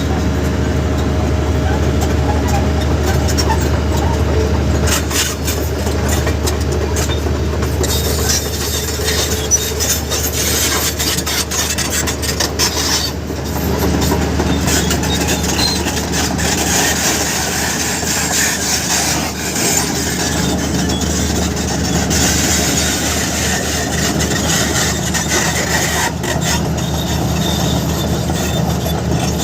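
Sany SY350 crawler excavator working: its diesel engine runs steadily under load, with frequent metallic clanks and rattles from the machine throughout.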